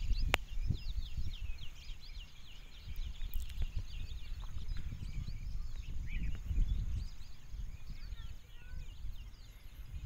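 Wind buffeting the microphone under many small birds chirping in short rising and falling notes, with a single sharp click about a third of a second in.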